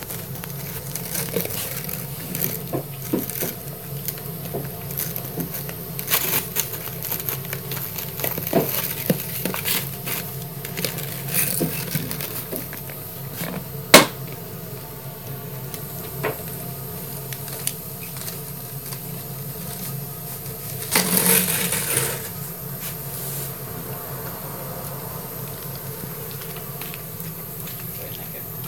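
A dog chewing and gnawing a plastic milk bottle, the plastic crackling, crunching and scraping in irregular clicks. One very loud sharp crack comes about halfway, and a longer crunching burst about three quarters of the way through.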